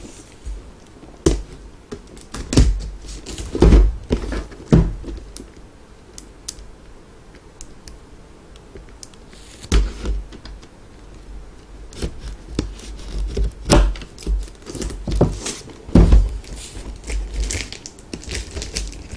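A cardboard figure box being handled and opened on a table: irregular knocks, taps and low thumps, with short stretches of scraping and crinkling as the tape on it is worked at.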